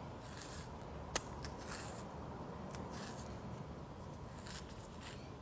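A banana being peeled by hand: faint rustling and soft tearing of the peel, with one sharp click about a second in.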